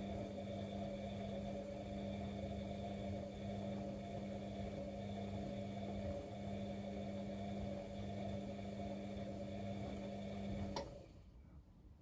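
Bosch WFCX 2460 front-loading washing machine running mid-wash with a steady hum and a low rumble, which stop suddenly with a click about eleven seconds in.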